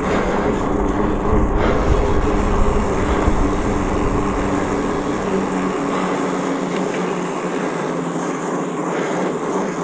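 Off-road vehicle engine running at fairly steady revs, with a heavy low rumble underneath that drops away about six seconds in.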